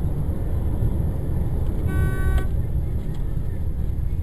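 Steady low road and engine rumble heard from inside a moving car, with a car horn sounding once for about half a second around two seconds in.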